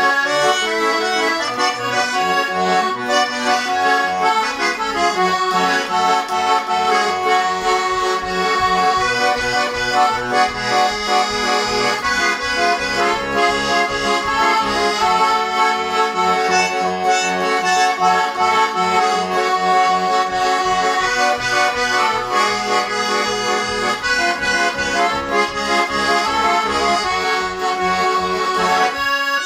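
A Shuya Chaika-2 garmon (Russian button accordion) being played: a melody over an even pulse of left-hand bass notes and chords. The instrument is freshly tuned, with its valves reglued.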